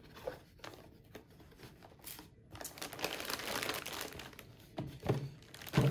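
Clear plastic packaging crinkling as bagged parts are lifted out of a cardboard box. The crinkling is mostly in the second half, with a few light knocks of the box near the end.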